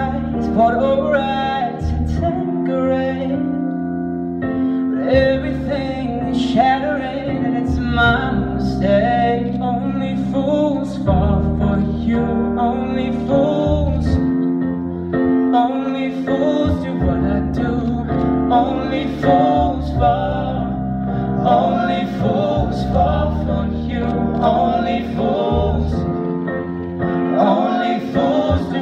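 Male pop vocal trio singing live into handheld microphones, the lead line passing from one singer to another, over sustained instrumental backing.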